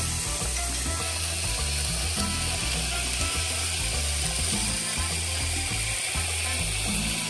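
Salmon steaks frying in oil in a pan, a steady sizzle with fast crackling. Background music with a bass line plays under it.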